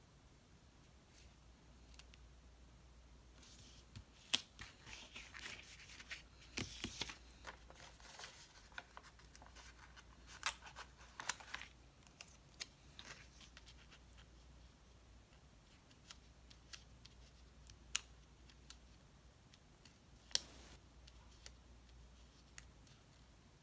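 Faint handling of sticker paper: small clicks and rustles as stickers are peeled from their sheet and pressed onto a planner page. The sounds come in a flurry through the first half, then only a few single clicks.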